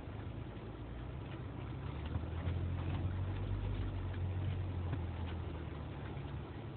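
Jeep Wrangler JK engine running at low revs as it crawls over slickrock, heard from inside the cab, working harder for a few seconds in the middle. Light clicks and rattles come through along with it.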